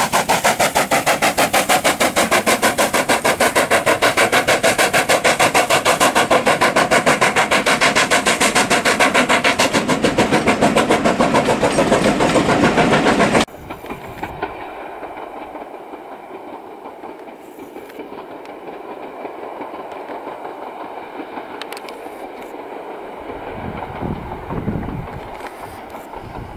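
Steam-hauled train, behind LMS Black Five locomotive 45212, passing close by with a loud, fast, even rhythmic beat. About halfway through the sound cuts off suddenly to a much quieter, distant train sound with wind on the microphone, which gusts near the end.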